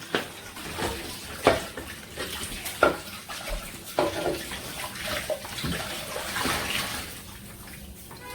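Kitchen tap running into a sink during washing up, with irregular knocks and clinks of dishes or utensils handled in the water.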